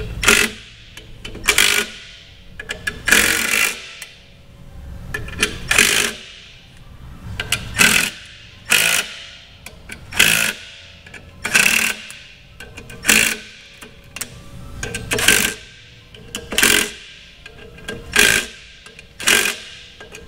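Hand ratchet wrench running down clutch-flywheel bolts, a short burst of clicks on each back-swing, about once every second and a half.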